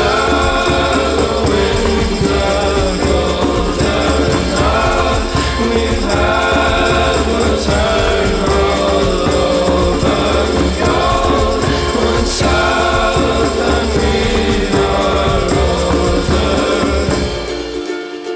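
Soundtrack music with singing voices over a steady bass line. Near the end the bass drops out and the music thins to a lighter section.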